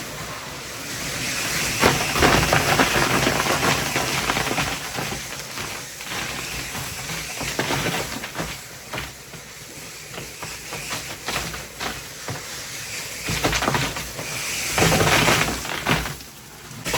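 Ice-crushing machine running while crushed ice rushes into a fishing boat's hold: a steady hiss-like rush with many small clatters. It swells about two seconds in and again near the end.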